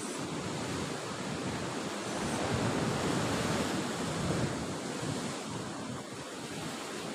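Ocean surf breaking on a rocky shore: a steady rushing wash that swells louder for a couple of seconds in the middle, with wind on the microphone.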